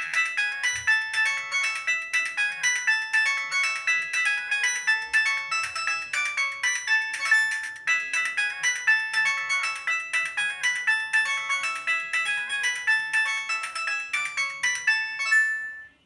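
Siemens S55 mobile phone playing one of its built-in ringtones through its loudspeaker: a quick electronic melody of short, bright notes that starts suddenly and stops just before the end.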